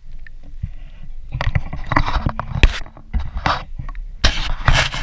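Handling noise from a GoPro camera on a broom-stick pole as it is swung and carried: irregular scraping, rubbing and knocking on the camera housing, with a low rumble.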